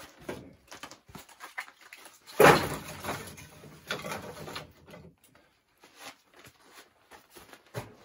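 Knocks and clatter from working at a steel barrel wood stove. One loud bang comes about two and a half seconds in, followed by about two seconds of rattling, then scattered light clicks and a sharp knock near the end.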